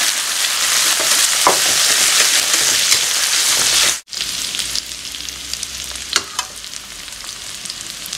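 Minced garlic and chilli sizzling in hot oil in a wok, stirred with a metal spatula that scrapes the pan now and then. The sizzle breaks off for an instant about halfway, then goes on more quietly.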